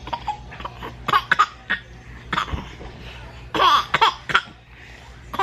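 A woman and a baby laughing in several short bursts, loudest about two-thirds of the way through.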